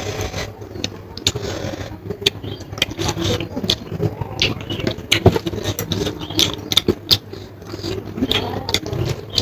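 Close-up eating sounds: chewing and mouth smacks, with irregular sharp clicks and scrapes as food is handled on a plate.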